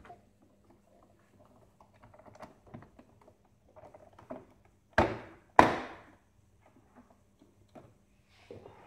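Light clicking and rubbing of plastic parts being handled, then two loud sharp knocks about half a second apart as the Saeco Incanto HD8917's front coffee-dispenser cover is pressed and snapped into place on the machine's casing.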